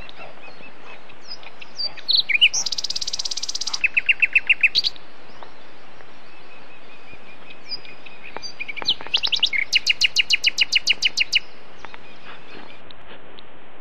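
A songbird singing two phrases, each of high whistled notes ending in a fast run of repeated notes, about eight a second, over a steady hiss.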